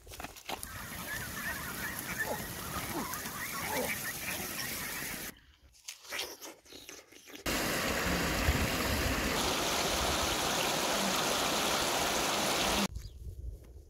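Ducks quacking over a noisy background, then a short quiet gap with a few faint clicks. After that comes the steady, even rush of river water over rapids, which cuts off suddenly near the end.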